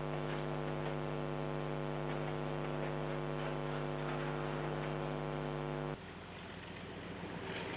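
Steady electrical mains hum with many overtones, from the security camera's audio. It cuts off abruptly about six seconds in, giving way to a quieter, even noise that slowly grows louder.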